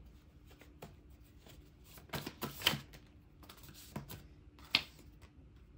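Tarot cards being handled and drawn from the deck: scattered rustles and light snaps of card stock, the sharpest about halfway through and again near the end.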